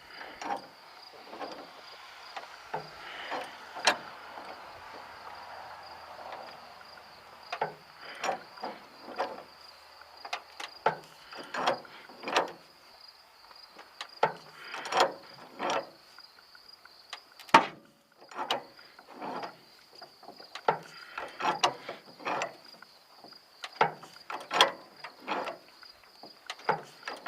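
Hydraulic bottle jack being pumped with a bar under a car's rear frame: a string of short squeaky creaks, roughly one or two a second, as the jack strokes and the loaded frame takes the pressure. Crickets chirp steadily in the background.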